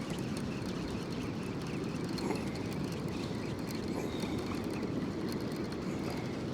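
Steady outdoor noise of wind and sea: a low, even rumble with no distinct events.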